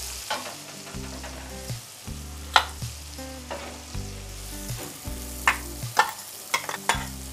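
Oil sizzling in a steel kadai with a tempering of whole spices and chillies, broken by several sharp clinks of a brass spoon against a steel mixer jar and the pan as ground masala is scooped in, most of them in the second half.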